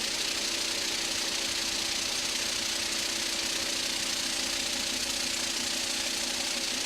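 Machinery running steadily: a constant hum with a strong hiss over it.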